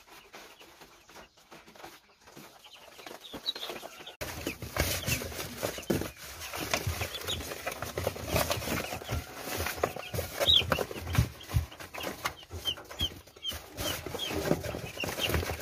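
Two-day-old broiler chicks peeping in short, high chirps over light clicking and rustling. The sound is sparse at first and becomes busy and louder after about four seconds.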